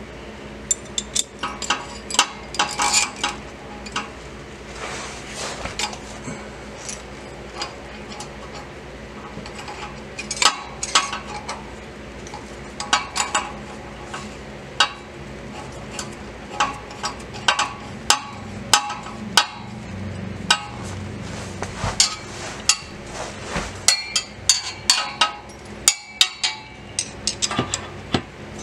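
Scattered metallic clicks and clinks of hand work on a driveshaft center support bearing carrier: the carrier halves and their small bolts being handled and fitted, then the bolts turned with a hand hex driver.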